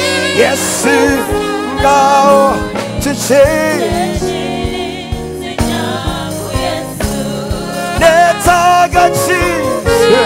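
Live gospel praise and worship music: a male lead vocalist singing with a group of backing singers over sustained instrumental chords and a steady beat.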